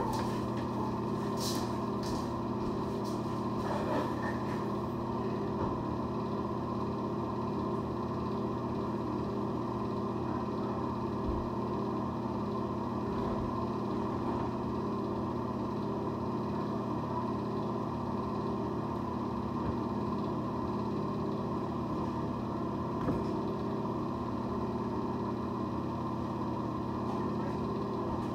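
A steady machine hum made of several steady tones, unchanging throughout, with a few faint clicks in the first few seconds.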